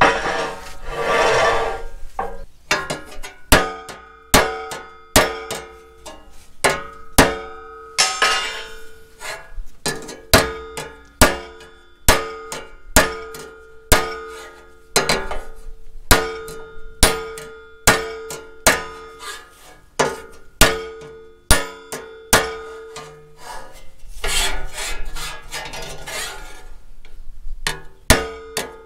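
Hand hammer striking a steel tractor fan shroud over a round steel bar to work out dents: a steady run of sharp, ringing metal blows, a little more than one a second. The blows pause for stretches of scraping near the start, around eight seconds and around twenty-five seconds.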